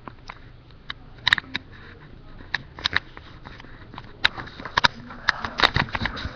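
Irregular sharp clicks and light knocks of handling noise from a handheld camera being moved about, sparse at first and coming more often in the second half, over a faint steady background hum.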